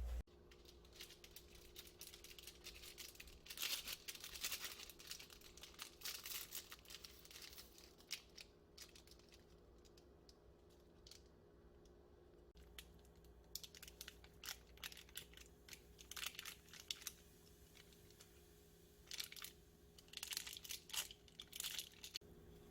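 Quiet rustling and crinkling in irregular bursts, like material being crumpled or torn, over a faint steady hum.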